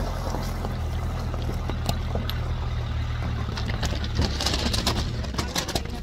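Fiat Ducato motorhome's engine running low and steady as it rolls slowly over a loose-stone riverbed, with stones crackling and popping under the tyres, thickest near the end.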